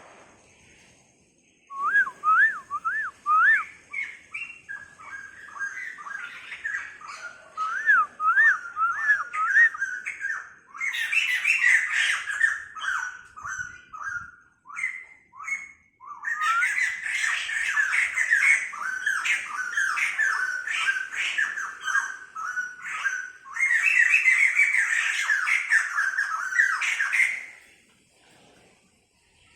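Laughingthrush (khướu đầu bạc) singing: a run of repeated rising whistled notes at first, then loud, rapid, varied phrases broken by short pauses, stopping shortly before the end.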